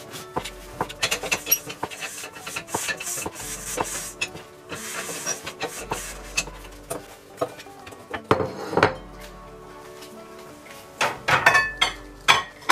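Chef's knife cutting on a plastic cutting board in a run of quick taps. Near the end come several louder clinks and clanks of a metal pot and lid.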